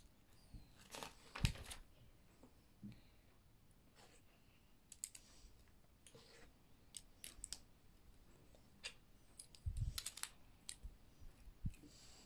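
Plastic LEGO bricks being handled and pressed together: scattered light clicks and taps, with a louder knock about a second and a half in and another toward the end.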